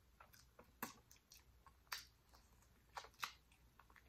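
Faint mouth sounds of chewing jerk pig tail: a handful of soft, wet clicks and smacks spread over an otherwise near-silent background.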